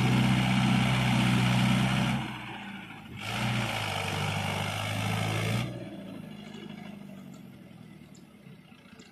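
Mahindra Yuvo Tech Plus 585 tractor's diesel engine revving hard in two loud spells of about two seconds each, with a short dip between them, then easing off and fading to a low running sound.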